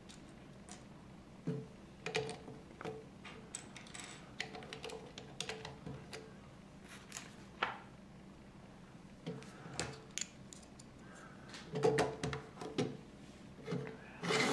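LEGO plastic pieces clicking and tapping as they are handled and pressed onto a model: a run of small, irregular clicks, busiest toward the end.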